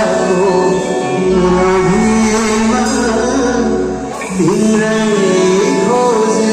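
Live band playing a Nepali song, with a singer holding long, wavering notes over the band and a steady low bass.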